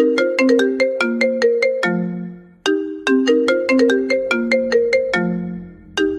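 A mobile phone ringtone: a short melody of quick, bright plucked notes that repeats about every two and a half seconds.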